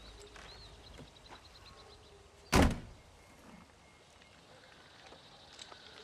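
A single heavy thunk from a Land Rover Defender's door about two and a half seconds in, over a quiet outdoor background.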